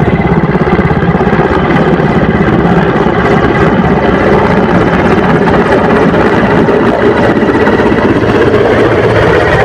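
Mi-17 helicopter flying, its rotor and engines making a loud, steady drone with a fast, even beat.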